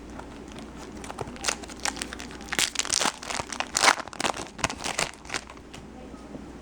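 A baseball card pack's foil wrapper crinkling and tearing as the pack is opened by hand: a run of quick crackles starting about a second in, densest around the middle and dying away about five seconds in.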